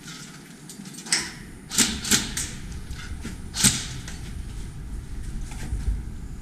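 Airsoft gun firing single shots, each a sharp snap: one about a second in, two in quick succession near two seconds, and one more at about three and a half seconds, over the low rumble of movement.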